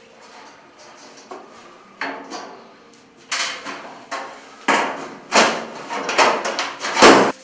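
Irregular knocks and clatters of hard parts and tools being handled while a plasma TV is put back together, getting busier and louder after a quiet first two seconds, with the loudest knock near the end.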